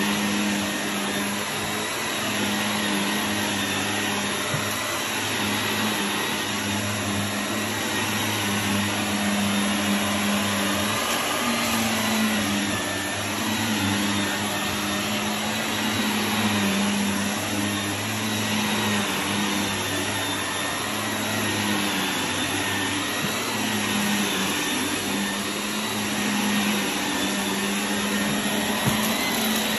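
Shark NV380 Navigator Lift-Away upright vacuum cleaner running on carpet as it is pushed back and forth: a steady motor hum and rush of suction, swelling and easing slightly with each stroke.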